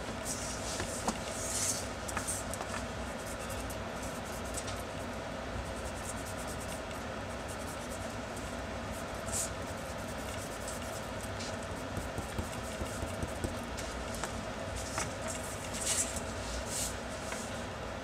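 Rubber eraser scrubbing back and forth over pencil lines on drawing paper, heard as a few short scratchy bursts over a steady background hum.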